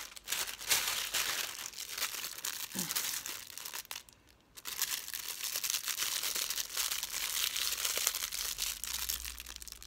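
Plastic packaging crinkling and rustling as hands pull open a black plastic mailer bag and then handle a clear plastic bag. The rustle stops briefly a little before the middle, then carries on.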